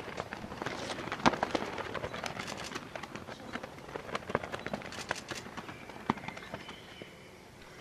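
Large ceremonial guild flags being swung and whirled, the cloth flapping and snapping in irregular sharp cracks and rustles, with shoes scuffing on the paving.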